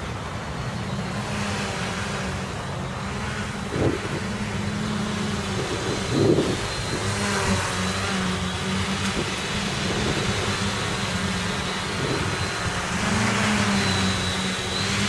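HB7 CFo1 FPV multirotor's electric motors running with a steady buzz and a faint high whine. A knock about four seconds in and a louder one about six seconds in, as the craft comes down hard onto the grass, briefly break the buzz. The motors then run on and rise near the end.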